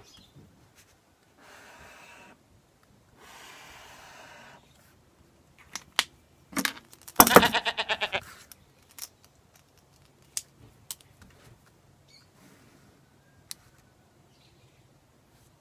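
Pen and highlighter strokes scratching across paper in two short runs, with scattered light clicks of pens and caps on the desk. About seven seconds in comes the loudest sound, a brief pitched sound lasting about a second.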